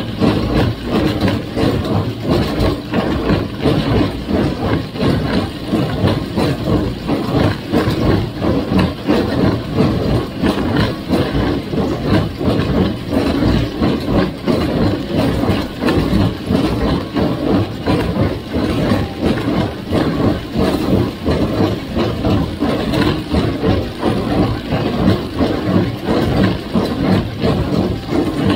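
1958 Farmall 350 tractor's four-cylinder gas engine running steadily, with an even pulsing beat.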